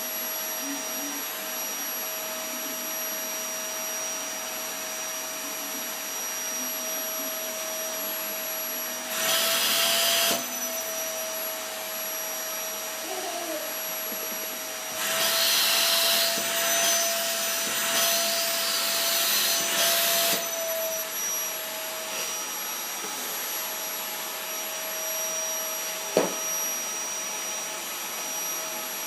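Vacuum cleaner running steadily with a constant motor whine. Twice the rush of air grows louder: briefly about nine seconds in, then for about five seconds from fifteen seconds. A single sharp click comes near the end.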